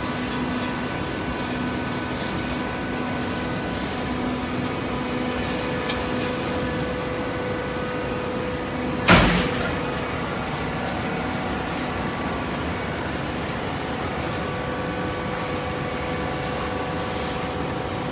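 Auto-tying horizontal baler running with a steady machine hum, with one loud bang about nine seconds in.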